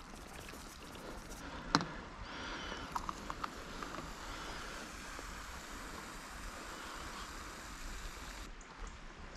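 A sharp click, then cola poured from a plastic bottle into a mug: a steady fizzing trickle with a few small clicks, stopping suddenly near the end.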